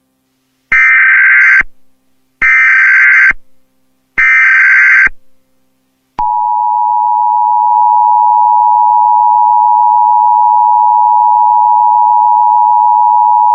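Emergency Alert System tones: three short bursts of the SAME digital header, then about six seconds in the steady two-tone attention signal (853 and 960 Hz) sounds and holds, marking the start of an emergency alert broadcast.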